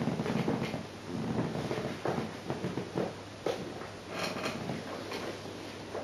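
Irregular light knocks, clicks and rustling of objects being handled and moved around.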